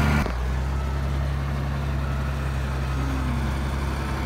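Caterpillar 814 wheel dozer's diesel engine running steadily as the machine pushes soil with its blade, a low, even drone; about a quarter of a second in the note shifts and drops slightly in level.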